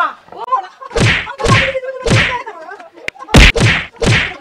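Blows in a staged fight: six loud sharp whacks in two groups of three, about a second and a half apart between the groups, with a woman's voice crying out between the first strikes.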